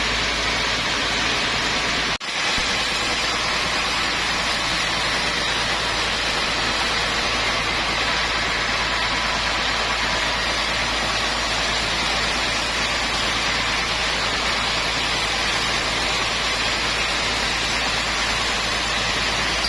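Sawmill machinery running with a steady, even noise, briefly cutting out about two seconds in.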